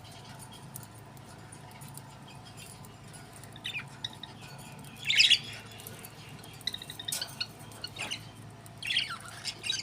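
Budgerigars chirping and squawking in short, scattered bursts, beginning about three and a half seconds in, with the loudest burst about five seconds in, over a faint steady hum.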